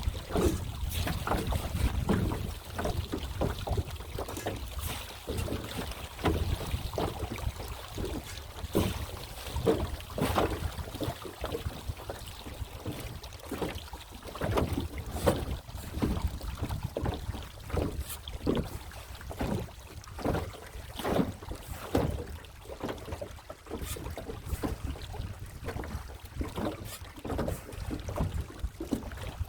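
Water splashing and lapping around a small boat in repeated strokes about once a second, with a steady low rumble of wind on the microphone.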